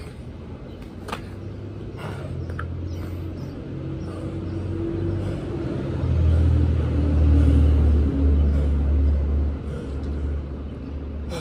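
Low rumble of a passing heavy vehicle, building to its loudest a little past the middle and then easing off. Two sharp knocks come about one and two seconds in.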